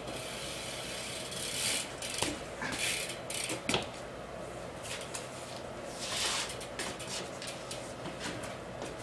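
BMX bike being ridden for flatland tricks: short scuffs of the tyres on the floor and a few sharp knocks from the bike, the loudest about three and a half seconds in, over a steady low hum.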